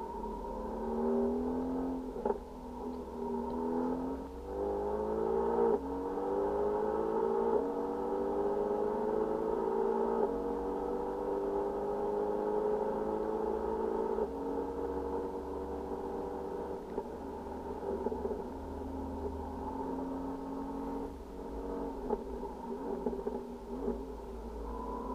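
Mercedes-AMG GT R's twin-turbo V8 heard from inside the cabin, pulling hard through the gears. The pitch climbs and breaks off at an upshift about four times in the first ten seconds, then settles into a steadier, lower drone with smaller rises and falls, over a low road rumble.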